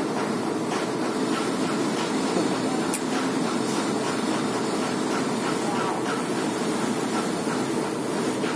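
Heavy machinery running with a steady low drone, with no hammer blow.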